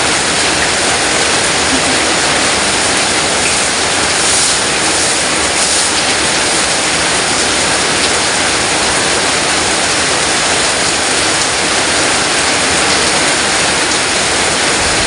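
Heavy downpour: a loud, steady hiss of rain, so heavy that it drowns out a voice.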